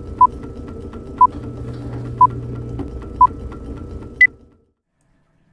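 Film-leader countdown effect: a short, loud beep once a second over the steady whir and rapid clatter of a running film projector. The last beep is higher in pitch, and then all sound cuts off suddenly.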